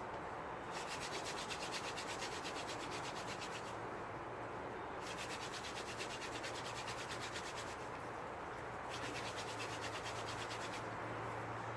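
Mullein-stalk hand drill spun back and forth between the palms in a white pine hearth board: a fast, even rubbing rasp of wood grinding on wood, in three bouts of about three seconds with short breaks between them. The set is already smoking as the drilling works toward an ember.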